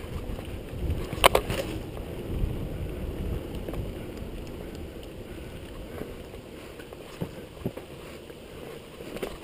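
Mountain bike riding fast down a dirt forest trail, heard from a GoPro on the rider: a steady rush of wind on the microphone and tyre noise, with knocks and rattles as the bike hits bumps, the loudest about a second in.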